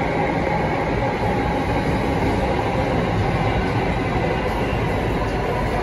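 Alstom Metropolis C830 metro train running at steady speed, heard from inside the passenger car: a steady rumble and rush of wheels and running gear, with a faint steady hum above it.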